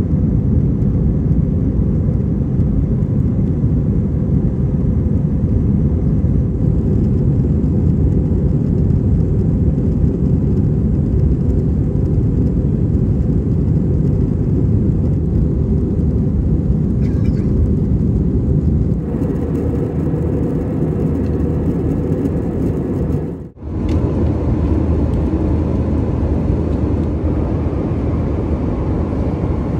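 Steady low roar of an Airbus A320's engines and rushing air heard inside the passenger cabin as the jet climbs after takeoff. It drops out for a moment about three-quarters of the way through, then the same steady cabin roar carries on.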